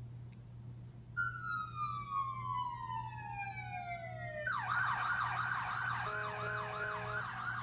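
Electronic emergency-vehicle siren: a long wail falling steadily in pitch, then about four and a half seconds in it switches to a fast yelp warble of about four cycles a second. Near the end a steady lower tone sounds alongside the warble.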